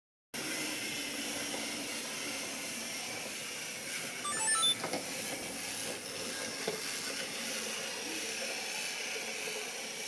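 Steady background hiss, with a quick run of short electronic beeps stepping in pitch about four and a half seconds in as the Sony FDR-X3000 action camera and its live-view remote switch on and begin pairing. A faint click follows about two seconds later.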